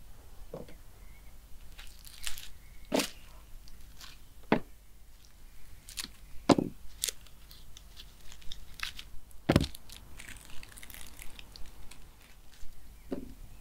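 A knife cutting crisp food on a board: irregular crunching cuts with sharp knocks, a strong one every second or two.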